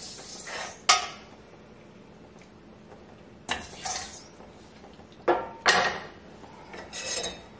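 Wire spider strainer clinking and scraping against a stainless steel colander as cooked penne is scooped out, a few sharp metal-on-metal knocks with softer rattles between.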